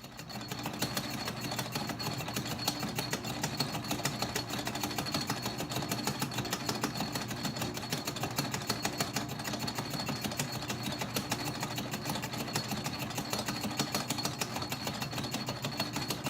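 Atlas metal lathe running under power through a facing pass on a metal plate: the motor and gear train clatter in a rapid, even rhythm, with a thin steady high whine over a low hum.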